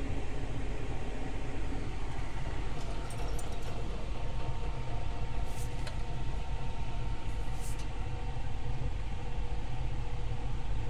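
Steady low mechanical rumble with a faint steady whine above it, broken by two brief high rustles a little past the middle.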